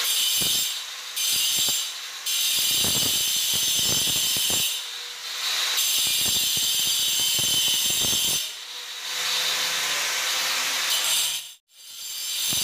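Electric angle grinder with an abrasive disc grinding a bevel into the edge of a granite countertop: a loud, high grinding whine that dips several times and cuts out for a moment near the end.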